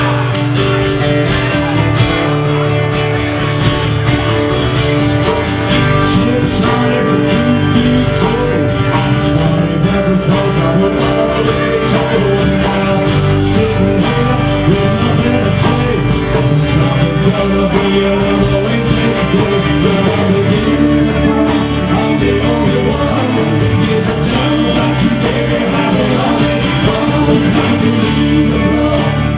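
Live band playing a guitar-led song with singing, loud and steady throughout.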